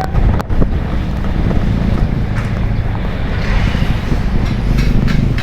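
A bus's engine runs steadily under road noise and wind on the microphone, with a sharp click about half a second in.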